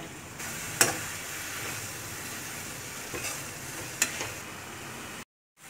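Mint leaves frying in oil in a kadai with a steady soft sizzle as a spatula stirs them. The spatula clacks sharply against the pan about a second in and again at about four seconds.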